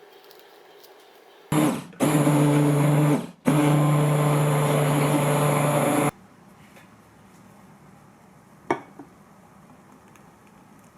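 A small electric motor run in three bursts, a short one, a longer one and a longest of about two and a half seconds, with a steady hum. A single sharp click follows a couple of seconds after it stops.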